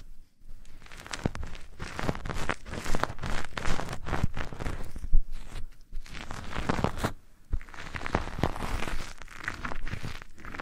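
Close-miked ASMR scratching and rustling: dense, irregular crackly strokes right against the microphone, with a few brief lulls.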